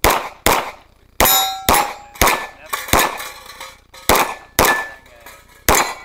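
Pistol shots fired in rapid strings, about nine in six seconds, in uneven pairs. Several shots are followed by the ringing of struck steel targets.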